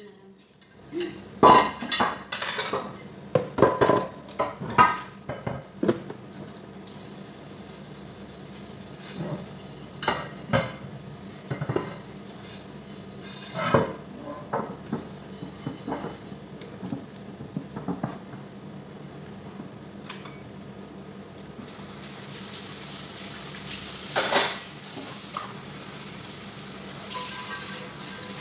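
Hand-washing dishes in a kitchen sink: crockery and utensils clatter and knock against each other and the sink while being scrubbed, the clatters thinning out after the first half. Near the end the tap runs steadily as a white ceramic baking dish is rinsed under it.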